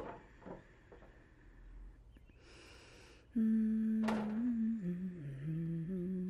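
A voice humming a slow, low tune that starts about halfway in, its pitch stepping gently downward, after a brief hiss.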